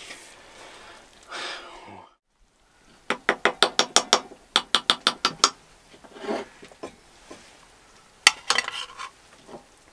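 Metal spoon clinking and scraping against a pan, in a quick run of about a dozen sharp clicks a few seconds in, then a few more clinks near the end.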